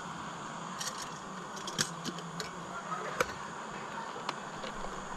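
Small metal clicks and clinks, a few separate ones spread over several seconds, as a cooking pot is set on a canister camp stove and gear beside it is handled, over a steady soft hiss.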